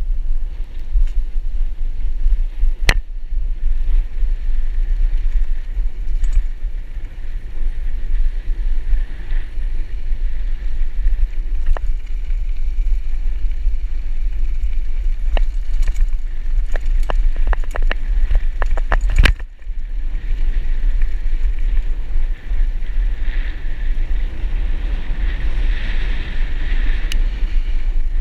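Wind rumbling and buffeting on the microphone of a camera moving along a dirt forest road, with scattered sharp rattles and clicks. The clicks come once a few seconds in and then in a quick cluster around the middle, just before a brief drop in the sound.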